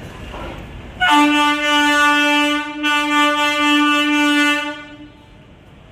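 Indian Railways locomotive horn sounding one long blast of about four seconds on a single steady note, over low station background noise.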